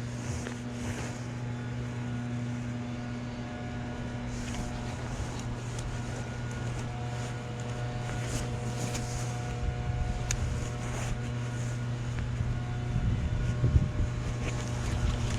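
A steady low motor hum, with bursts of wind on the microphone near the end.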